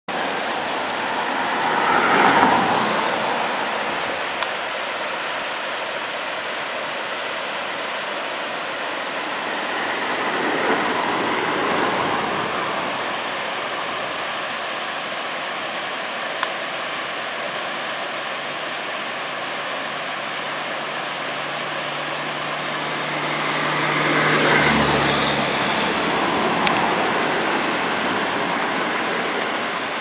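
Steady outdoor rushing noise with road vehicles passing three times, each a slow swell that rises and fades; the last pass brings a low engine hum that builds and ends in a deep rumble.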